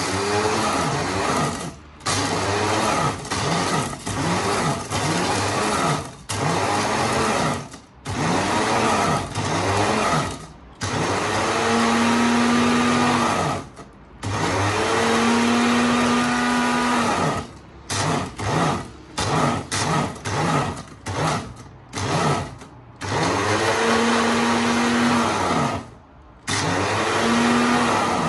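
Tefal electric mini chopper grinding toasted bread cubes into crumbs, pulsed on and off: a string of short bursts and several longer runs of about two seconds, with the motor's pitch rising and falling in each, separated by brief stops.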